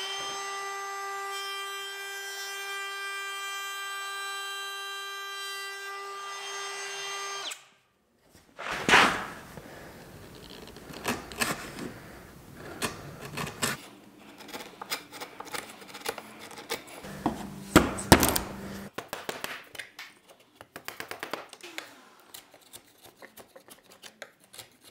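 A compact palm router runs with a steady high whine for about seven seconds, planing down the surface of an old pine door stile, then stops abruptly. After that a hand chisel pares and scrapes the pine, with scattered taps and knocks; the loudest come about a second after the router stops and again around the middle.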